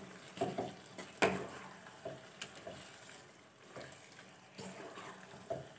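Wooden spatula stirring cashews into thick chicken gravy in a nonstick pan, with soft scraping and a few light taps against the pan over faint sizzling.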